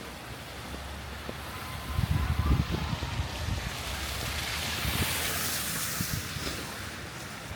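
Outdoor street noise in a snowstorm. Wind buffets the microphone with low rumbling blows about two seconds in, then a vehicle's tyres hiss past on the snowy street, swelling and fading.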